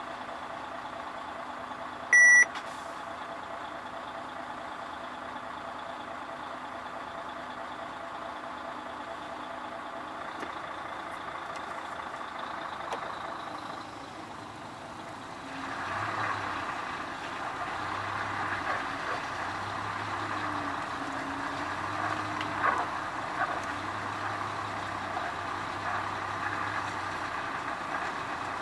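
Truck diesel engine running steadily, heard inside the cab, with one short, loud electronic beep about two seconds in. From about halfway the engine sound gets louder, with a regular low pulsing.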